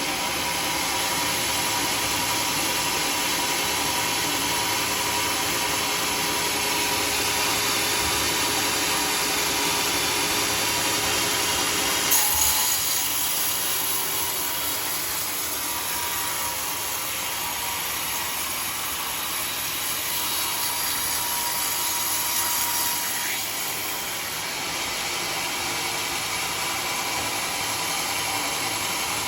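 Sawmill saw cutting through a teak log, a steady sawing noise with a faint whine. About twelve seconds in there is a short sharp knock, and the cut then runs on a little quieter.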